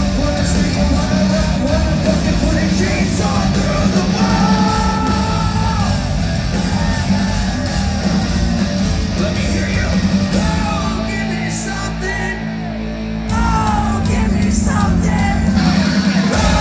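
Hard rock band playing live: distorted electric guitars, bass and drums at full volume with a male singer singing and shouting, heard from within the audience. Near the end the band drops briefly to a thinner passage, then comes back in full.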